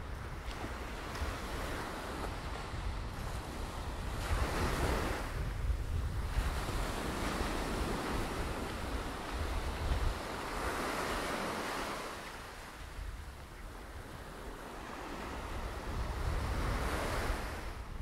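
Small waves breaking and washing up a sandy shore, the surf swelling and fading several times a few seconds apart, with wind rumbling on the microphone.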